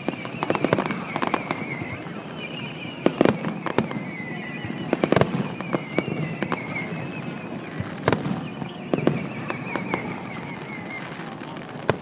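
Fireworks display: a series of sharp bangs from bursting shells, the biggest about three, five, eight and nine seconds in, with crackling between them. A thin wavering whistle drifts slowly lower through the first ten seconds.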